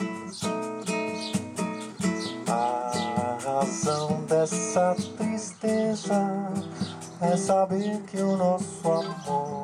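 Instrumental samba: acoustic guitar playing chords and a melody, with a timba hand drum beating a steady rhythm.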